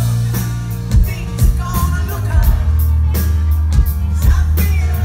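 Live rock band playing: a male lead singer over electric guitar and a drum kit with a steady beat.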